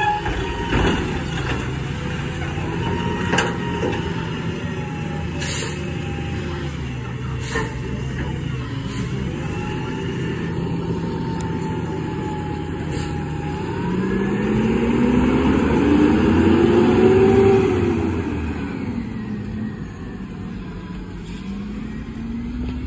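Front-loader garbage truck's diesel engine running, with several clanks and short hisses in the first half. About two-thirds of the way through, the engine revs up with a rising whine for a few seconds, then drops back, as it does when it drives the lift arms.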